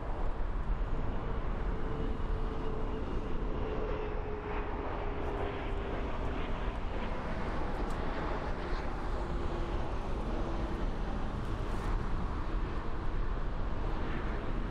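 Jet airliner engines running at a distance, a steady rumbling whoosh with a faint whine that slowly falls in pitch over the first ten seconds or so.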